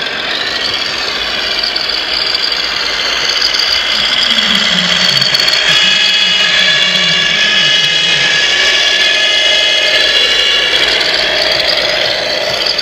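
Large RC scale model fire truck driving slowly past close by: a steady high whine of its electric drive and gears over running noise, growing louder over the first few seconds as it nears.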